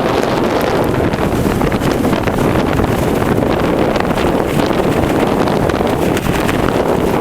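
Strong blizzard wind buffeting the microphone: a loud, steady rushing with no let-up.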